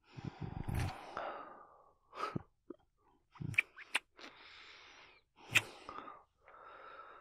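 A man's voice close to the microphone making breathy non-verbal sounds: a series of exhales and sighs, some with a low throaty rumble, and a few sharp mouth clicks.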